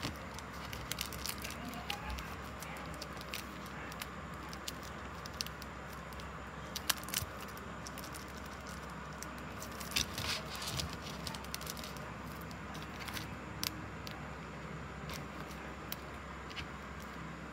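Scattered small clicks, taps and crackles of hands handling things, over a steady low hum of room noise.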